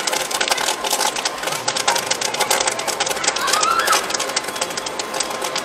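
Popcorn popping in the kettle of a popcorn machine: a dense, irregular crackle of many quick pops.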